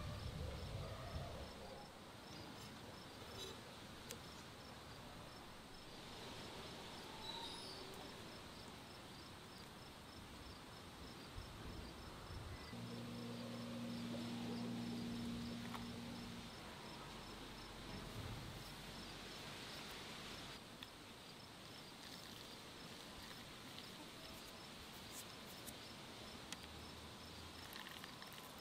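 Faint, steady chirping of crickets, with a low hum for a few seconds around the middle.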